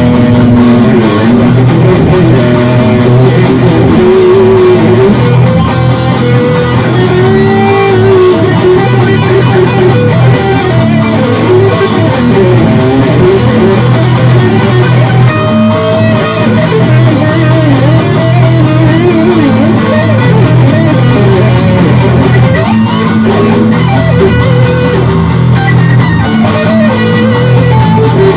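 Hard rock in E minor on guitar, played loud and steady: a lead line with pitch bends over a sustained low rhythm part.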